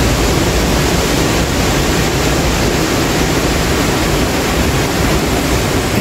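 Waterfall: a loud, steady rush of falling water.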